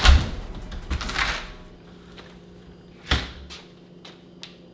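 A front door being opened and shut: a loud sharp knock at the start, a brief scuffle about a second in, and another sharp knock about three seconds in, followed by a few faint ticks.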